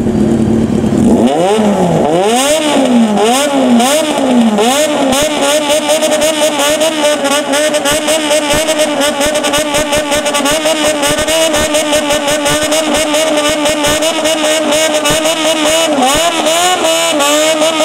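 Modified motorcycle engine revved in place in a Japanese bōsōzoku-style 'call': the throttle is first blipped in a run of quick rising-and-falling revs, then held high with a fast, fine wobble in pitch, with a few more dips and swells near the end.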